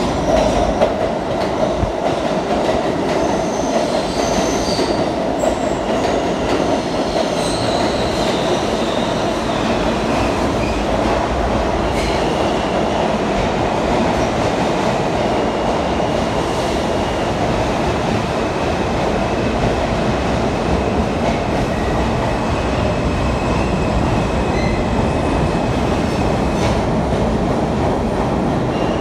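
New York City subway train rolling into the station past the platform, a loud steady rumble of steel wheels on rail with some clacking. Short high squeals come early on, and from about halfway a thin steady high-pitched squeal sets in and cuts off shortly before the end.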